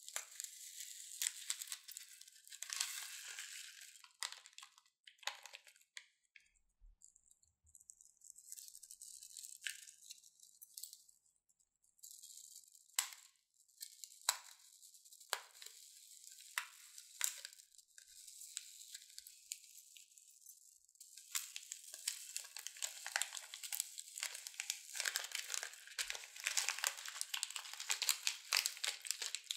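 Plastic piping bags crinkling as scissors snip off their tips, with several crisp cuts about halfway through. Small foam balls spill out onto slime, making a dense crackling rustle over the last several seconds.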